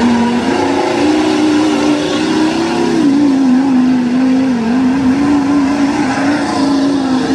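Lifted Ford Super Duty pickup's engine held at high revs while the truck spins doughnuts in mud, its pitch wavering up and down as the throttle is worked.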